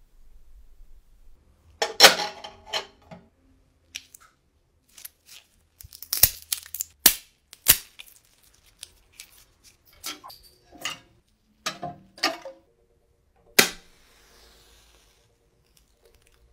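Thin wooden sticks snapped by hand into kindling: a run of sharp cracks and clicks, the loudest about two seconds in. Near the end a match is struck, with a short fizz as it flares.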